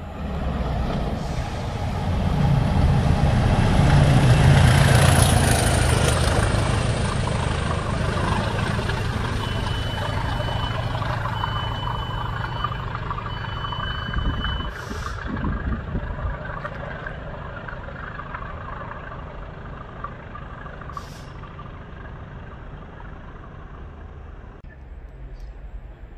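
Class 20 diesel locomotives, English Electric engines, running through the station: a heavy engine rumble builds to its loudest about four to five seconds in, then fades slowly as they pull away. Three short high beeps sound about ten seconds in.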